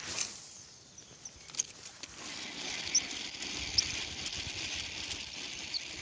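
Outdoor ambience: a steady high hiss that swells about two seconds in, with a low rumble underneath and a few short, high bird chirps.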